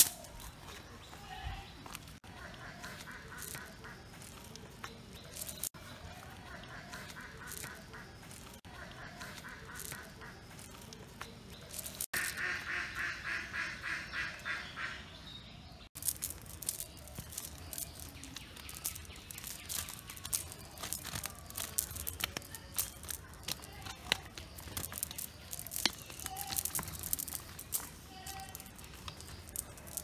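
Freshly caught pond fish flapping and slapping on bare dirt as they are shaken out of a wet cast net, heard as many short taps and rustles. In the middle comes a rapid pulsing sound, loudest for about three seconds.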